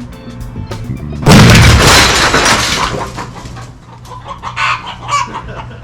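A water-filled basketball bursting from steam pressure inside a microwave oven: one sudden loud blast about a second in that blows the microwave apart, dying away over about two seconds. Chickens cluck afterwards.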